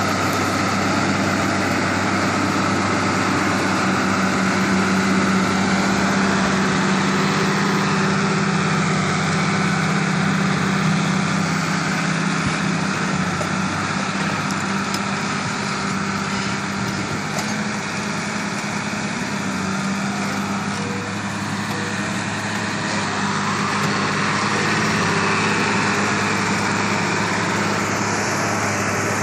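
New Holland M135 tractor's diesel engine running steadily at about 1900 rpm under heavy load, pulling a single-furrow plough 60–70 cm deep. It is loudest in the first third, then a little quieter.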